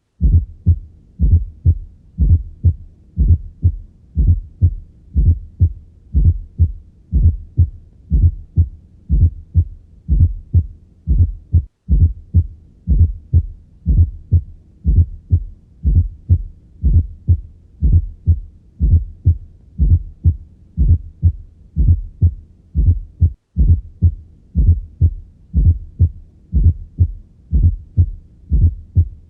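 Heartbeat heard through a stethoscope in a regular gallop rhythm: each beat is a cluster of low thuds, a soft fourth heart sound (atrial gallop) falling just before the first heart sound, then the second. The extra sound is the sign of a stiff ventricle that has lost its compliance, as in diastolic dysfunction. The sound breaks off for an instant twice.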